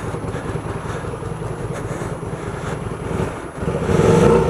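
Hyosung GT125R's 125 cc V-twin engine running at idle, a steady low pulse; near the end the revs come up and it gets louder.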